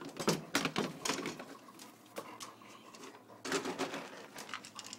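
Dry dog food clattering: irregular clicks and rattles in two spells, one at the start and one after about three and a half seconds.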